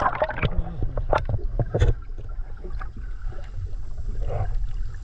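Sea water heard through an action camera held just below the surface: a steady low, muffled rumble with gurgling and sharp clicks and knocks, the strongest about one and two seconds in.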